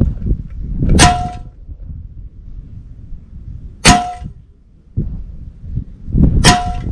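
Air rifle pellets striking a metal pellet trap behind a paper target, three hits each ringing briefly: about a second in, near four seconds and near the end.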